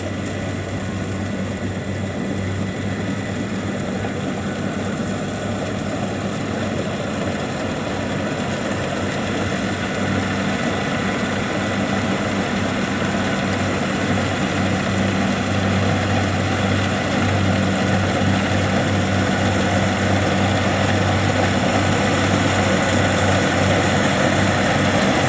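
Kubota DC70 Plus combine harvester's diesel engine and machinery running steadily, growing a little louder toward the end.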